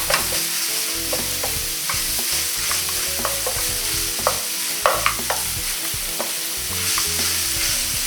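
Beef mince sizzling as it browns in a hot non-stick frying pan, with a wooden spoon scraping and tapping irregularly as it breaks the meat up.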